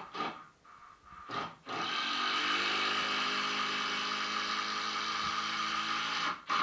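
Handheld power tool giving a few short bursts, then running steadily at one speed for about four and a half seconds before stopping near the end.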